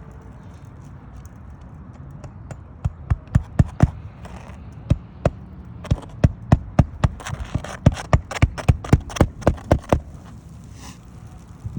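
A rapid series of sharp knocks, two to four a second, starting about three seconds in and stopping about ten seconds in.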